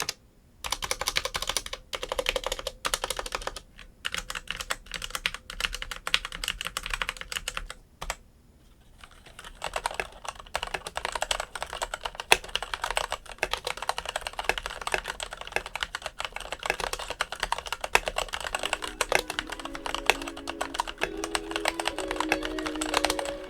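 Typing on a Logitech Signature K855 mechanical keyboard with TTC red linear switches: a dense run of key clicks, with a short pause about eight seconds in, then steady fast typing. A few notes of background music come in near the end.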